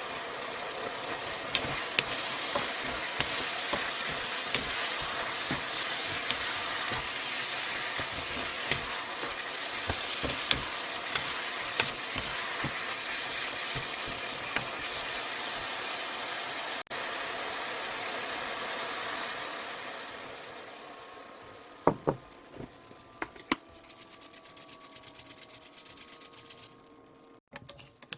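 Food sizzling in a frying pan as it is stir-fried, with light clicks of the utensil against the pan. The sizzle dies away about two-thirds of the way through, leaving a few separate knocks.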